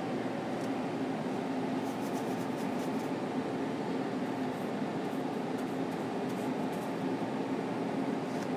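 Steady mechanical room hum, with faint light scratches of a paintbrush working on the panel now and then.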